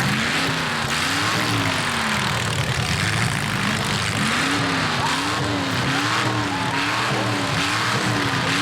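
Demolition derby car engines revving up and falling back again and again, about once a second, over a steady din of running engines.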